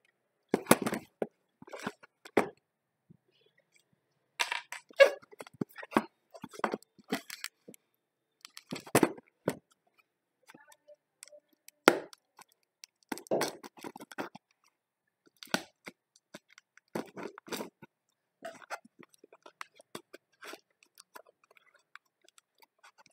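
Cardboard shipping parcel being handled and opened by hand: irregular bursts of crinkling, scraping and tearing of cardboard and packing material, with short pauses between.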